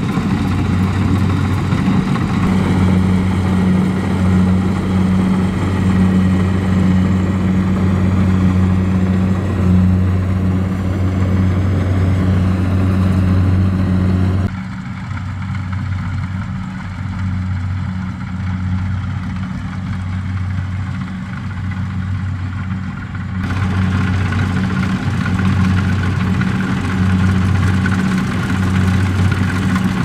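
Kubota DC-70 Plus combine harvester's diesel engine running steadily under working load while it cuts rice, a steady low drone. About halfway through the sound turns duller and slightly quieter for around nine seconds, then comes back fuller.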